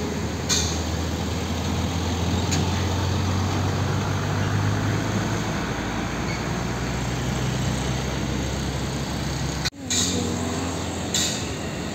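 Heavy diesel truck traffic passing close by: the steady low engine hum and tyre noise of a semi-trailer hauling an ISO tank container, with two brief sharp sounds about half a second and two and a half seconds in. After a sudden cut near the end, the diesel engine of a Hino Ranger tractor unit runs as it rolls slowly.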